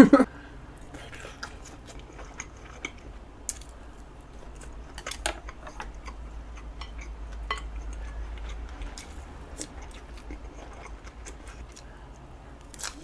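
Close-miked chewing and mouth sounds of a person eating spicy braised short ribs, with scattered small clicks.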